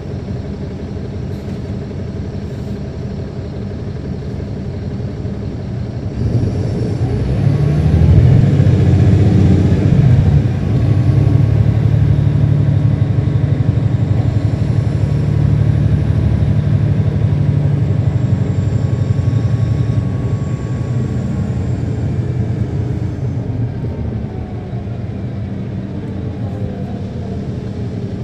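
Caterpillar C13 inline-six diesel of a NABI transit bus, heard from inside the cabin: idling, then about six seconds in pulling away under throttle, rising in pitch, with a brief drop about four seconds later like a gear change in its ZF automatic transmission. It holds a steady pull for several seconds, then eases off and winds down as the bus slows, back near idle for the last few seconds.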